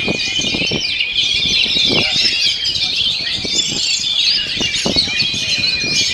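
Oriental magpie-robin (kacer) singing a loud, unbroken stream of fast, varied high notes and mimicked phrases, with a long steady whistle recurring beneath. Irregular low thumps run under the song.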